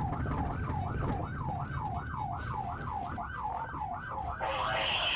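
Police car siren in a fast yelp, its pitch rising and falling about two and a half times a second, over the patrol car's engine and road rumble. A short, harsher blast joins the siren near the end.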